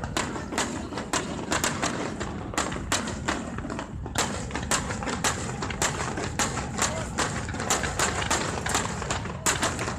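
Fireworks display going off: an irregular, rapid series of sharp bangs and cracks, several a second, over a steady noisy rumble.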